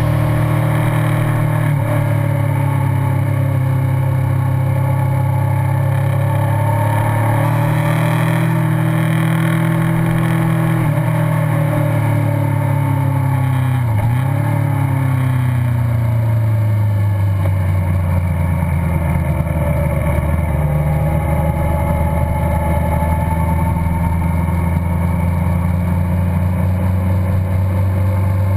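Kawasaki Concours 14's inline-four engine running under way at road speed, heard from on the motorcycle along with wind and road noise. The engine note rises and falls gently, dips briefly about halfway through, then settles to a lower steady pitch.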